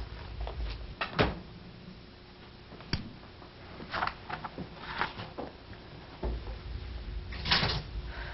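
Scattered short knocks, clicks and rustles of movement and objects being handled in a room, like a cupboard or door.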